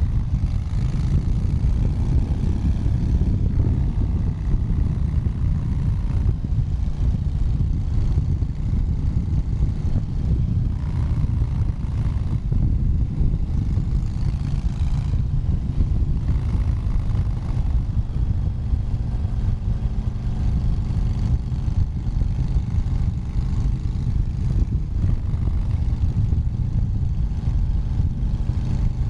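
Harley-Davidson V-twin motorcycle engine running steadily with a deep, low rumble. Its pitch eases down slightly near the start and holds fairly even after that.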